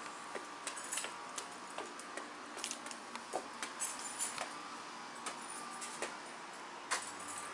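Footsteps climbing an outdoor stairway, heard as irregular light taps and clicks, about one every half second.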